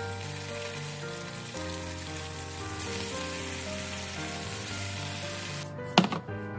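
Cabbage and pork sizzling in a frying pan as they are stir-fried with chopsticks, the sauce's moisture cooking off, over background music. The sizzle stops just before the end, and a ceramic plate is set down on the counter with one sharp clink.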